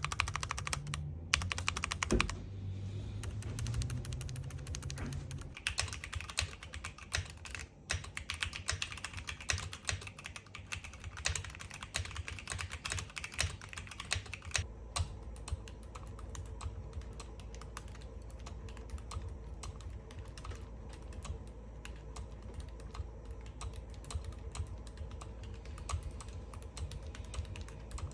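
Rapid typing on a mechanical keyboard fitted with Gateron Brown and Outemu White silent switches: dense, continuous key clicking. About halfway through, the clicks turn softer and duller, as the test moves from one switch set to the other.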